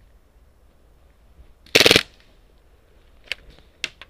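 Airsoft gun firing a short full-auto burst of about a third of a second, close by, a little under two seconds in. It is followed near the end by two sharp clicks.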